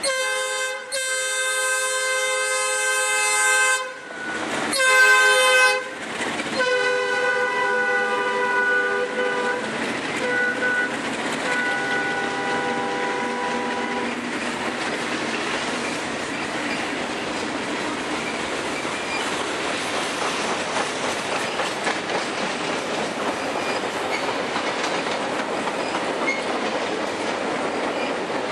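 Diesel freight locomotive horn sounding several blasts as the train comes up, loudest about five seconds in, then fading away over the following seconds. It is followed by the steady rumble and clatter of freight cars rolling past at speed.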